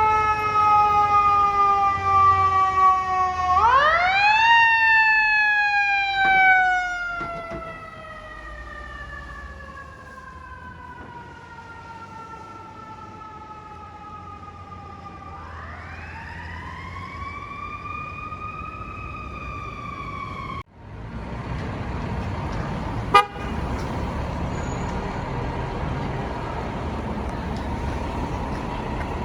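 Fire truck's mechanical siren, spun up quickly twice and each time winding down slowly in a long falling whine. It cuts off suddenly about two-thirds of the way through, leaving steady street traffic noise and one sharp click.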